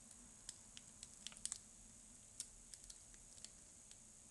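Faint, light metallic clicks of a key being worked in a small brass lock cylinder, scattered irregularly with a small cluster about a second and a half in.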